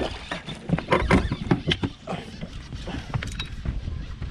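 Irregular knocks and thumps of footsteps and gear on a fishing boat's deck, mixed with water splashing, as a musky that has just struck a topwater lure is hooked and fought.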